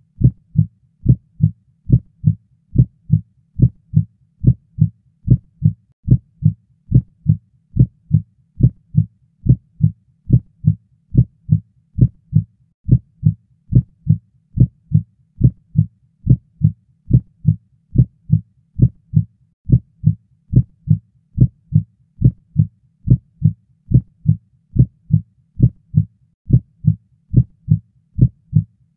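Heartbeat sound effect: a steady series of low, dull thumps, a little under two a second, with nothing else over it.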